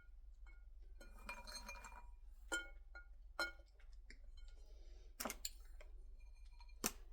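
A spoon scrapes and clinks against a glass bowl: a soft rustle about a second in, then a handful of sharp, faint clinks that ring briefly, spaced a second or two apart.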